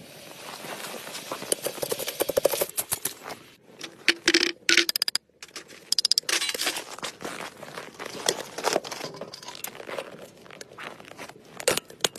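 Cooking handling noises cut together: crackling and scraping, with many sharp clicks and knocks from metal and utensils, and a brief dropout about five seconds in.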